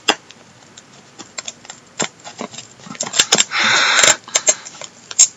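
A ballpoint pen jabbed into and dragged through a parcel's packaging to open it: scattered clicks and scratches, thicker around three seconds in, and a louder half-second scraping rush a little over three and a half seconds in.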